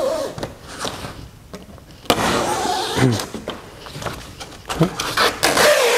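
Utility blade slicing through a wing's decades-old fabric covering in scratchy strokes: one begins sharply about two seconds in, and a longer one runs from about five seconds.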